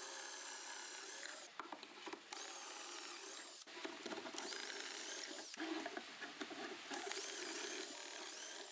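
Cordless drill boring dowel holes into the edge of a pine board through a doweling jig, running quietly in several short runs with brief stops between them.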